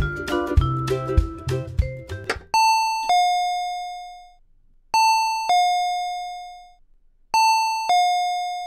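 A few bars of chiming mallet-percussion jingle music end about two and a half seconds in. Then a front-door chime rings three times, each a two-note ding-dong, a higher note falling to a lower one that fades away, about two and a half seconds apart.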